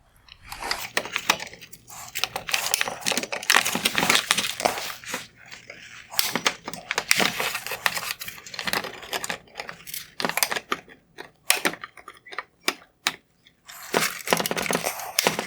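Plastic clicking, scraping and rattling as the snap-in mounts holding a Porsche Panamera LED headlight's lower projector are squeezed and released by hand. The clicks come irregularly, some sharp, over a steady handling noise.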